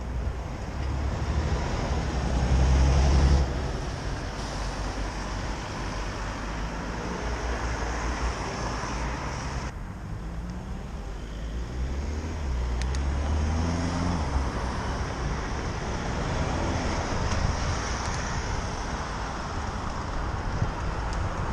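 City road traffic: a steady wash of vehicle noise with a low rumble that swells as vehicles pass, loudest about three seconds in.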